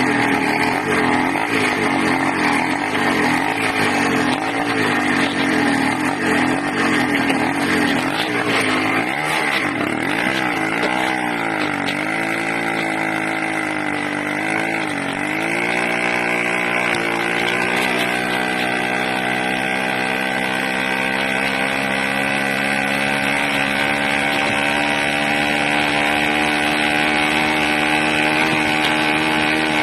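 80cc engine running loud with an unsteady speed: it surges rapidly up and down at first, sags and recovers a few times, then settles into a steady run. The owner takes the hunting for a leak at the carburettor's intake manifold.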